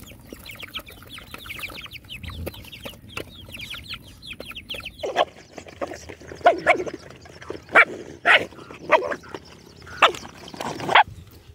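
Chickens calling around a feeding pack of dogs: rapid high peeping chirps for the first few seconds, then a string of about eight loud, short clucks and squawks.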